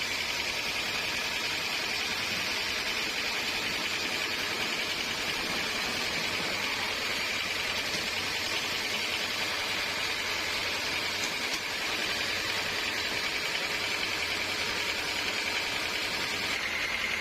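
Sawmill saw running steadily through a teak log: a constant high whine over an even hiss.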